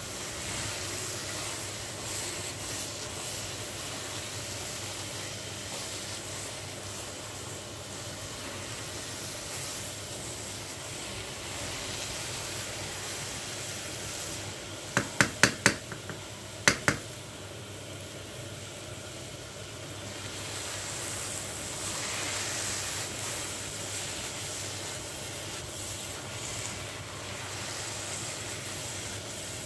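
Grated carrots with ghee and milk powder sizzling steadily in a pan as they are roasted and stirred with a spatula, the moisture cooked off so they now fry in the ghee. About halfway through, four sharp quick taps of the spatula against the pan, then two more.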